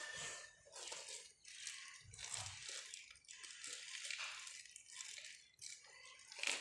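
Rustling and crinkling of packaging being handled during an unboxing, in a string of short bursts with a soft low thump a little after two seconds.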